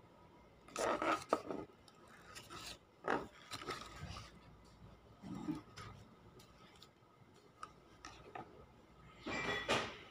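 Handling noise: a cardboard product box and a small cream jar being picked up and rubbed, a series of short scrapes and rustles, loudest about a second in and again near the end.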